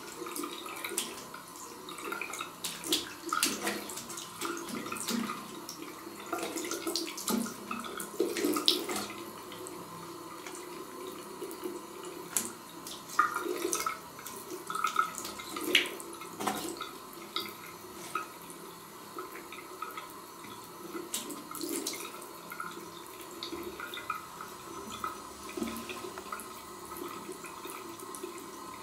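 A thin stream of water running from a bidet tap into the ceramic bowl, a steady trickle broken by many irregular small splashes and clicks as a cat paws at the stream and laps from it.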